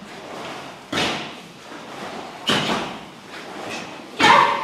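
Three sharp snaps about a second and a half apart, echoing in a large hall, from young karateka's gis as they throw front kicks (mae geri jodan).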